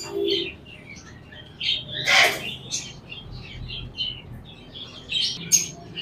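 Caged lovebirds chirping and chattering in many short, high calls, with one louder squawk about two seconds in.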